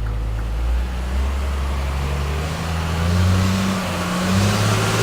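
Car engine running and accelerating: its pitch climbs steadily for a few seconds, then levels off, with a growing hiss near the end.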